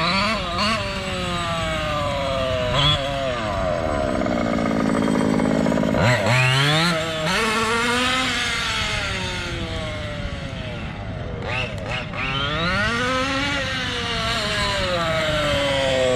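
Small two-stroke petrol engine of an MCD XR5 1/5-scale RC car, revving up and down repeatedly as the car is driven, its pitch rising and falling with the throttle. The pitch holds steady for a couple of seconds around the fourth to sixth second, then sweeps sharply up.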